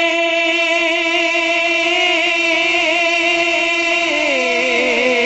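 Man singing a naat, holding one long unbroken note, then gliding down into a wavering, ornamented melodic run about four seconds in.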